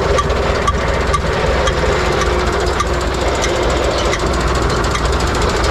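UTB 650 tractor's diesel engine running steadily with its mounted mower working: a steady drone under a fast, continuous metallic rattle.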